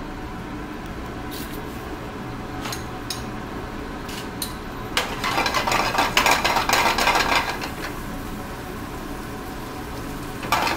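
A few light clinks of utensils, then about five seconds in food goes into a hot skillet over a gas burner and sizzles loudly for about three seconds before settling. The sizzle flares up again near the end.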